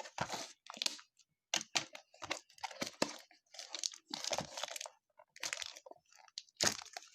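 Trading-card packaging being handled: irregular crinkling and rustling with short tearing and crunching sounds, in quick uneven bursts.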